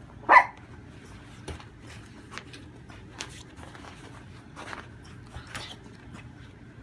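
A dog gives a single short, loud cough about half a second in, the hacking cough that the vet believed was kennel cough. Faint rustles and clicks follow.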